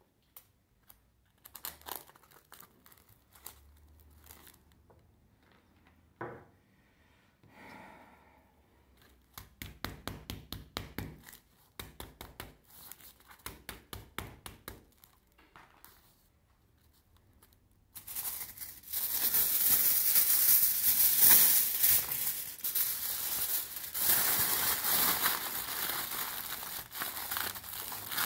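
Aluminium foil being crumpled and squeezed by hand around a styrofoam cone. At first there are scattered crinkles and clicks. About two-thirds of the way through, a dense, loud crinkling starts and runs on.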